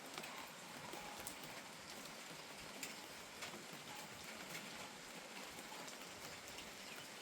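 Steady rain falling, with scattered individual drops ticking sharply on a hard surface over the even hiss of the downpour.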